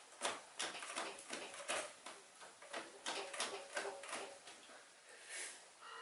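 A wrench working a fuel-line fitting: a run of irregular light metallic clicks and taps, thickest in the first four seconds and then dying away.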